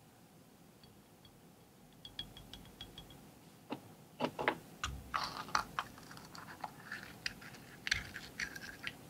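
A coin and small wooden box pieces handled on a stone slab: light ticks, then sharp clicks and taps with bits of scraping, busier from about five seconds in.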